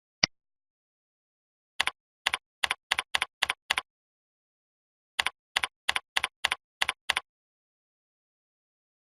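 A single sharp click, then two runs of about seven keystrokes on a computer keyboard, each key giving a quick double click of press and release, with silence between the runs.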